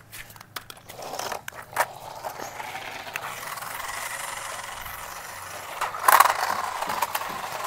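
Remote-control toy cars running: a steady whirr from their small electric motors and wheels, with a few sharp clicks near the start and a louder clatter about six seconds in.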